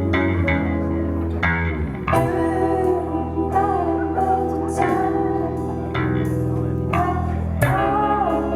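A rock band playing live, led by guitar over a bass guitar line, with sharp hits every second or two.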